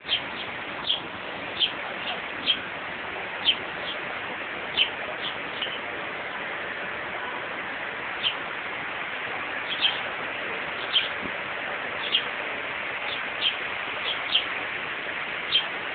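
A small bird chirping: short high chirps, irregularly spaced, a few to a couple of seconds apart, with a longer gap about six seconds in. Under it runs a steady outdoor hiss.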